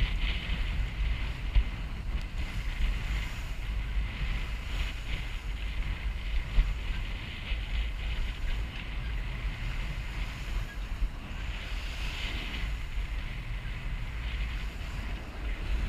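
Wind buffeting the microphone with a steady low rumble, over the hiss of water rushing along the hull of a sailboat under way.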